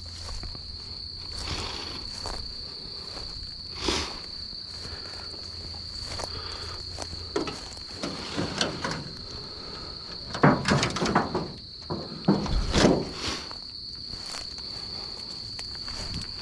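An insect calling steadily on one high note throughout, over footsteps and rustling through tall grass and weeds, with a couple of louder rustling bursts about two-thirds of the way through.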